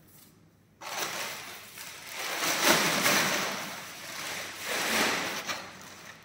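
A white plastic cover rustling and crinkling as it is moved about, starting about a second in and swelling twice.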